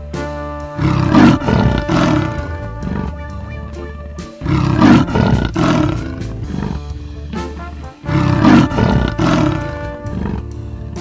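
A big cat roaring three times, each roar about a second and a half long, over background music.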